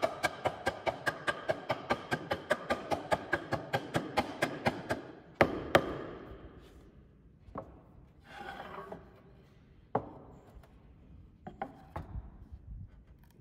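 Rapid knocking on a wooden stool's parts, about five or six taps a second with a hollow wooden ring, as a hand strikes the leg and boards where they join. The fast tapping stops about five seconds in, followed by two louder knocks and a few scattered knocks with some brief rubbing on the wood.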